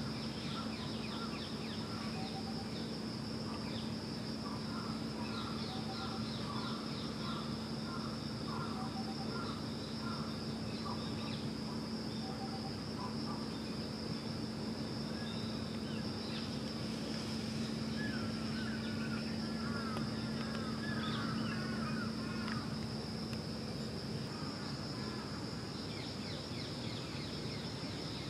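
Ambience of a steady high insect drone with birds chirping in short repeated phrases, over a steady low hum.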